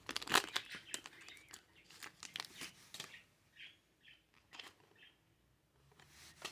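Crinkling of a foil booster pack wrapper and handling of trading cards: a run of short crackles over the first three seconds or so, then only a few faint ticks.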